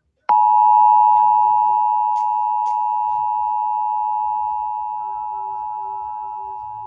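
Emergency Alert System two-tone attention signal: two steady pitches sounded together, a harsh droning chord. It starts sharply about a quarter second in after a moment of silence and slowly gets quieter. It announces an EAS test message.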